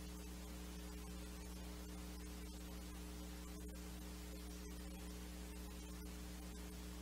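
Steady low electrical mains hum with a faint hiss underneath, unchanging throughout.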